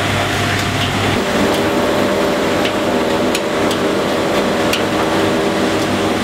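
Beko tumble dryer running after a drive-belt replacement: the motor hums steadily as the drum turns on its new belt, with a few faint ticks on top. The drum turning again is the sign that the repair has worked.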